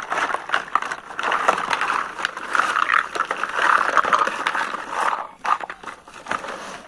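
Clear plastic bag rustling and crinkling while small plastic toy cups, pans and dishes clatter and click against each other as they are tipped out, thinning out near the end.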